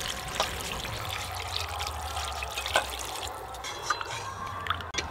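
Water poured from a steel jug into a clay cooking pot of curry, splashing onto the meat and potatoes. The pouring stops about three seconds in, followed by a few light knocks of a ladle stirring in the pot.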